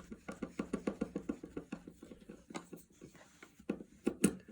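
A screw being backed out of a brass hinge in a wooden cabinet door: a quick run of small clicks, about seven a second, for the first second and a half, then slower scattered clicks and a few sharper knocks near the end.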